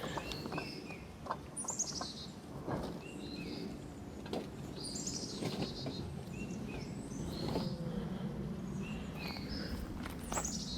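Small songbirds chirping and singing in short, repeated high phrases, with a few sharp clicks or knocks mixed in.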